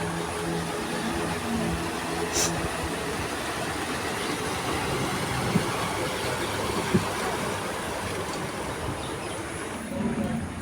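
Steady vehicle rumble, with a low engine hum that fades out about three seconds in.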